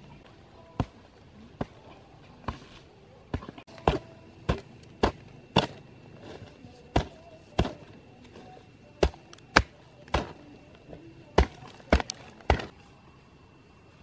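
A hoe chopping into loose earth, about sixteen sharp strikes at an uneven pace of one or two a second, stopping shortly before the end.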